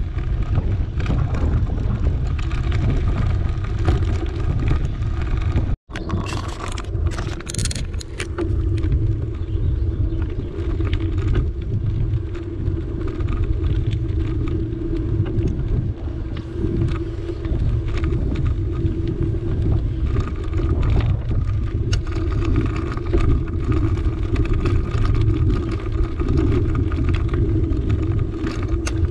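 Wind buffeting the microphone on a moving bicycle, with steady tyre noise on tarmac and scattered small rattles as the bike rolls over rough patches. The audio cuts out for an instant about six seconds in.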